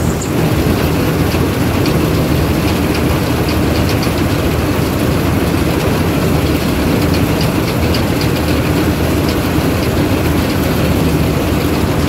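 Crop Star combine harvester running while cutting rice: a steady, loud engine drone with light rattling from the header and threshing machinery, heard from on board the machine.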